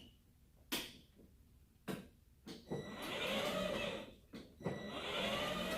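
Kids' 12-volt ride-on car's twin electric drive motors and plastic gearboxes whirring as it drives, in two stretches with a short break between. A few sharp clicks come in the first two seconds.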